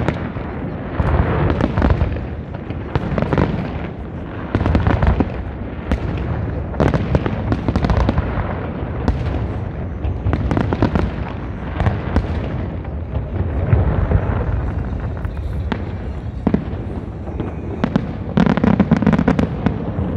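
Aerial fireworks display: shells bursting again and again with deep booms and crackling, sometimes several close together, with a quick run of sharp crackles near the end.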